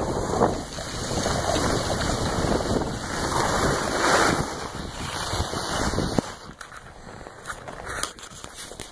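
Wind rushing over the microphone and the scrape of skis on groomed snow while skiing downhill. The noise drops sharply about six seconds in.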